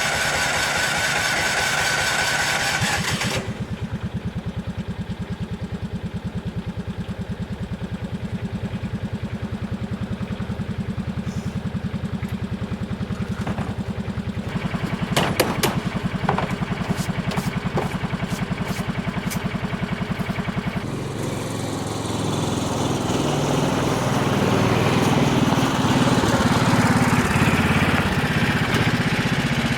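A small engine running steadily, with a high hiss over it for the first three seconds. A cluster of sharp clicks comes about halfway through, and the engine grows louder and noisier about two-thirds of the way in.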